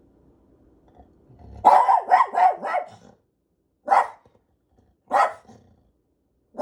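A dog barking: a quick run of about six barks, then single barks about a second apart, with another bark starting near the end.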